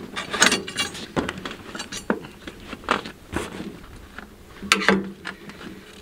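Irregular metal clicks, clinks and knocks of hand tools and belt hardware as a new draper belt is fitted on a combine header, with no machine running.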